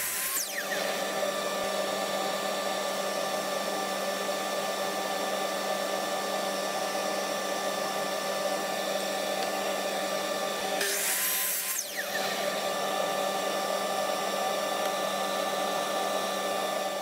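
A dust-extraction vacuum hooked to a Ridgid compound miter saw runs steadily throughout. The saw's motor winds down with a falling whine just after the start. About 11 seconds in, the saw spins up briefly for a crosscut through a pine block, then winds down again.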